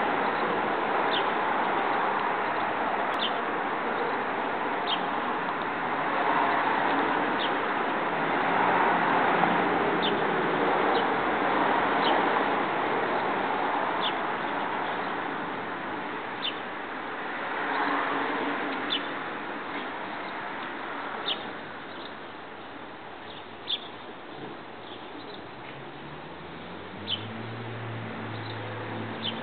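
Outdoor ambience: a steady hiss with short, high bird chirps repeated about every two seconds. A low hum comes in near the end.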